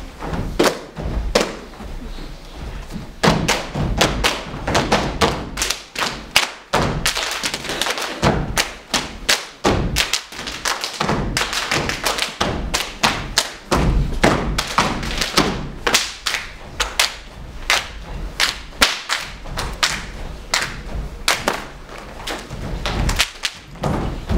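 Dancers' boots stamping and tapping on a wooden stage floor in a rhythmic percussive passage with no music. A few sparse stamps come first, then dense fast runs of stamps and heel strikes fill the middle.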